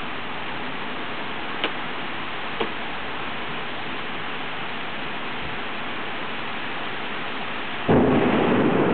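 Steady rushing of heavy rain, with two brief ticks a couple of seconds in. Near the end a loud thunderclap breaks in suddenly and keeps rumbling.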